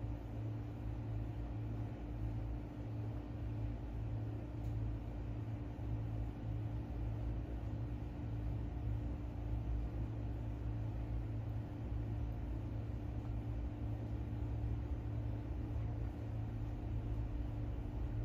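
Steady low machine hum with a rumble underneath, unchanging throughout.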